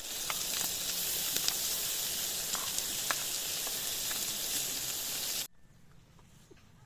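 Food sizzling in a hot frying pan: a steady hiss dotted with small crackling pops, cutting off suddenly about five and a half seconds in.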